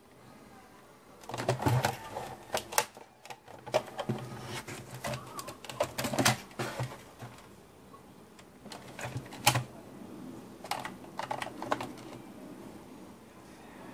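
Irregular clicks, knocks and rattles of a robot vacuum's plastic body being handled and turned over on a wooden workbench. A few sharper knocks come about two, six and nine and a half seconds in.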